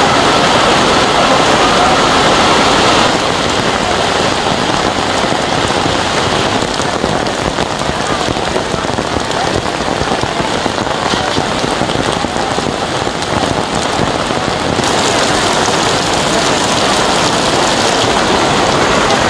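Heavy rain falling in a steady hiss. It shifts in tone about three seconds in and again about fifteen seconds in.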